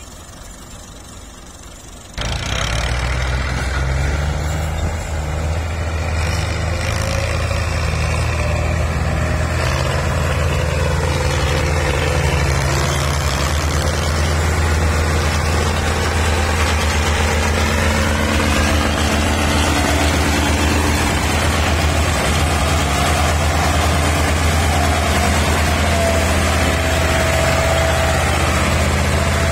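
Massey Ferguson 240 tractor's three-cylinder diesel engine running hard, pulling a trolley heavily overloaded with sugar cane. The engine comes in suddenly about two seconds in and then holds a steady note, with a pitch that drifts up and down higher up.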